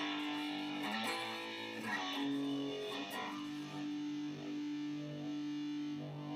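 Harley Benton SC-400 SGT electric guitar played through an amp with the pickup selector in the middle position. A chord is struck, changes a few times in the first three seconds, and is then held and left ringing.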